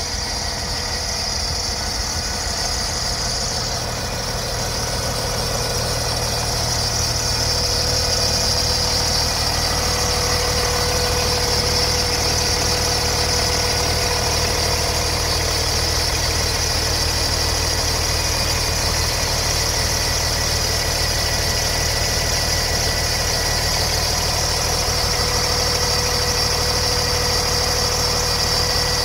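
A 2009 Peterbilt's Cummins inline-six diesel engine idling steadily, a low rumble under a constant high whine. It grows a little louder about six seconds in.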